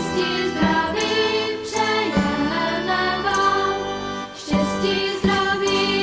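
Background Christmas music: a choir singing long held notes that shift in pitch every second or so.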